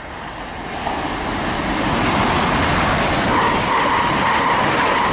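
A Chiltern Railways Class 168 diesel multiple unit passes through the station without stopping. Its noise builds over the first two seconds into a steady rush, with a thin high whine that gives way, about three seconds in, to a stronger lower tone.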